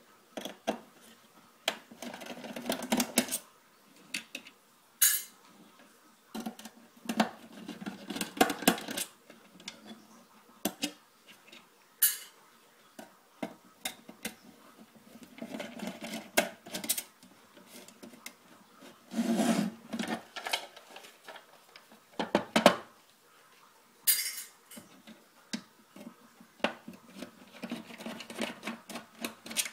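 Screwdriver and metal parts clicking, clinking and scraping against an Xbox's steel casing as it is taken apart, in irregular bursts with short pauses between.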